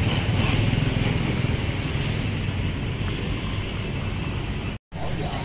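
City street traffic: a steady rumble of passing cars and motorbikes. It drops out for a moment near the end.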